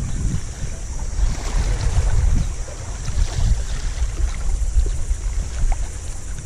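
Wind buffeting the microphone in a low, gusty rumble, over the wash of small waves against the jetty rocks.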